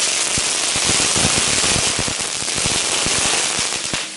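A flitspaal, a small category 1 strobe firework, burning on pavement: a continuous loud hiss and crackle with rapid irregular pops. It dies down near the end.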